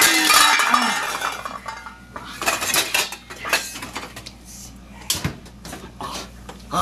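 Irregular clinking and clattering of small hard objects, a string of light knocks spread over several seconds, after a pitched sound falls in pitch and fades out in the first second.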